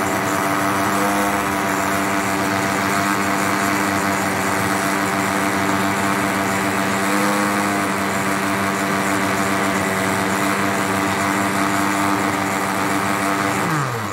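Electric kitchen blender motor running steadily at high speed, blending watermelon with milk. Near the end it is switched off and its pitch falls quickly as the motor winds down.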